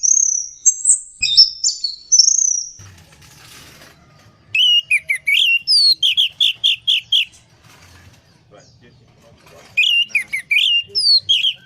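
Orange-headed thrush singing. It opens with a burst of fast, high chirps and trills, then after a short pause gives a run of about six rapid, repeated slurred notes. A shorter run of the same notes comes near the end.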